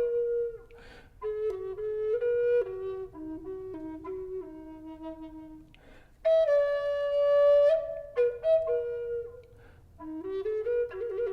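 Walnut bass Native American flute with a one-inch bore, in E minor and tuned to 432 Hz, playing a slow melody of low held notes that step downward. The notes come in phrases with audible breaths between, a louder high note opens the second phrase, and a warbling trill comes near the end.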